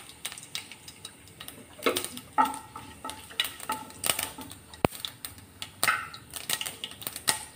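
Tempering spices (mustard seeds and dals) crackling and popping in hot oil in a steel kadai, in scattered irregular clicks, while a wooden spatula stirs and scrapes them against the pan.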